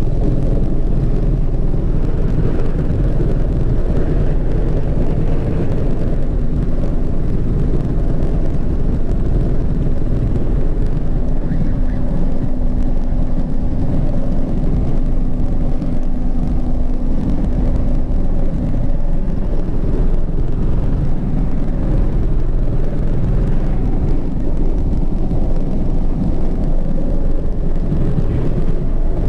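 Mi-35 helicopter in flight, heard from inside the cockpit: a loud, steady, low noise from its rotor and twin turboshaft engines, with a faint steady tone joining about six seconds in and fading out near nineteen seconds.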